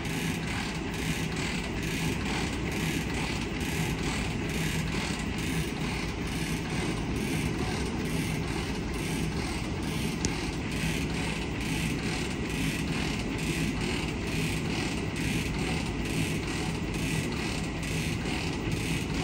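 Stanko 7A420 vertical slotting machine running with its table moving on longitudinal power feed in reverse: a steady machine hum with faint regular ticking about twice a second.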